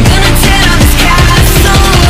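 Loud background pop music with a steady beat and a heavy bass line; no singing stands out.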